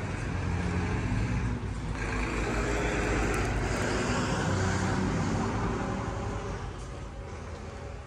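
A road vehicle passing close by, its engine and tyre noise swelling to a peak in the middle and then fading.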